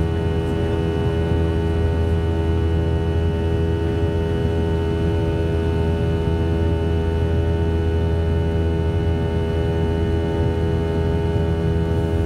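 MD-90's rear-mounted IAE V2525-D5 turbofan heard from inside the cabin right beside it, running in flight: a steady deep drone with a buzz made of many steady tones over it.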